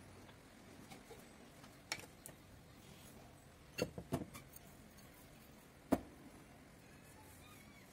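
A few light knocks and clicks on a wooden tabletop while raisins are being handled: one about two seconds in, a quick cluster of three near the middle, and the sharpest knock just before six seconds, over quiet room tone.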